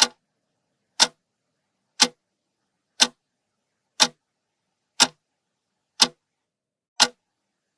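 Clock-tick sound effect, one sharp tick each second with a short ring after each, marking the thinking time before a riddle's answer.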